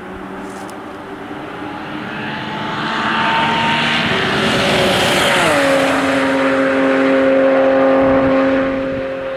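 Porsche 997 GT3 Cup race car's flat-six engine passing at speed: it grows louder as it approaches, drops sharply in pitch as it goes by about halfway through, then holds a steady lower note before fading near the end.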